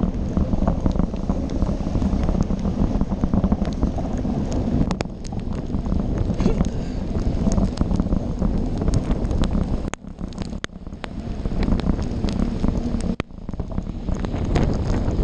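Wind buffeting the microphone of a bicycle-mounted GoPro during a ride in a rainstorm, a constant low rush with many sharp little taps and rattles over it. The rush drops out briefly twice, about ten and thirteen seconds in.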